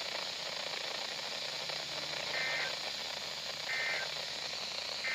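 Emergency Alert System end-of-message signal on NOAA Weather Radio: short, identical two-tone digital data bursts about 1.4 s apart, two of them and a third starting at the very end, marking the close of the Required Weekly Test. Steady radio hiss underneath.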